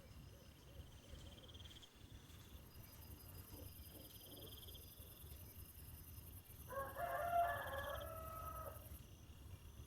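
A rooster crows once, a pitched call of about two seconds starting past the middle, over crickets chirping in short repeated trills and a steady high insect buzz.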